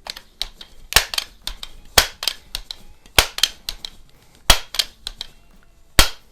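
Sharp mechanical clacks from a multi-pump air rifle being worked: five loud clacks roughly a second apart, with lighter clicks between them.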